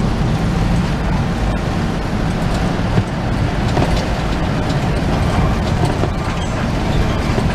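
Medium-size intercity bus under way, heard from inside the passenger cabin: a steady drone of engine and road noise.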